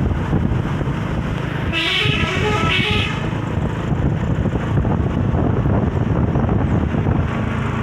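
Telolet multi-tone bus horn (Basuri V3) sounding two short blasts about a second apart, over a steady low rumble.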